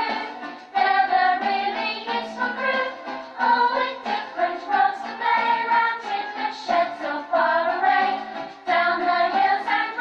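A choir sings a children's song over backing music, heard through a television speaker with little bass.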